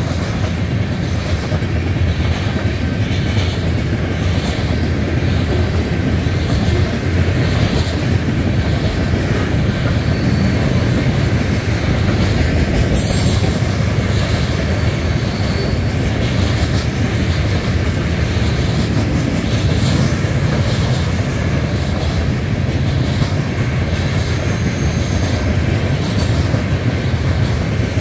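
Grain train of covered hopper cars rolling past: a steady rumble of steel wheels on rail, with a regular clickety-clack of wheels over rail joints and a faint wheel squeal.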